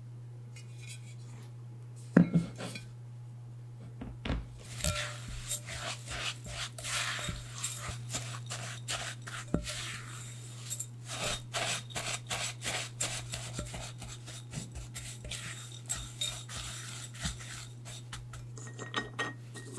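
A sharp knock about two seconds in, then a silicone spatula stirring and scraping rolled oats and flour in a glass bowl, a quick run of rustling scrapes as the oats are coated with oil. A low steady hum runs underneath.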